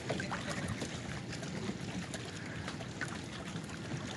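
Water lapping and splashing around small wooden fishing boats, with scattered small splashes and knocks.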